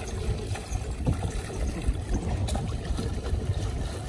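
Water streaming, dripping and splashing off a fine-mesh shrimp net as it is hauled by hand out of the water, over a low steady rumble.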